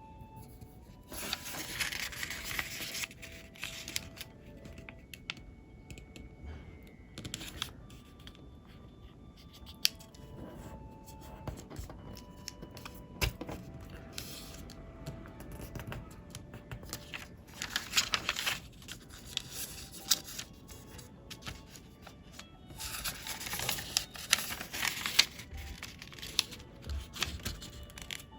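Square origami paper being folded and creased by hand: crisp rustling and crinkling in several bursts, the longest about a second in and again near the end, with faint background music underneath.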